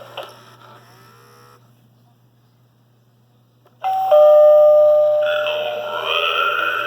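Gemmy SpEYEder animated Halloween doorbell sounding its electronic ding-dong chime about four seconds in, two steady held tones, followed by a wavering electronic sound effect that bends up and down. Before that the prop's previous sound fades out and it goes nearly quiet for about two seconds.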